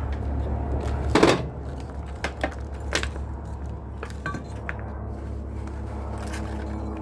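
Metal fan-motor parts clinking and knocking as they are handled during disassembly, a few separate strikes with the loudest about a second in, over a steady low hum.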